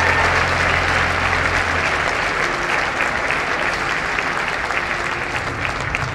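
A large congregation applauding, a steady crackle of many hands clapping, while the last low held note of the music fades out in the first two seconds.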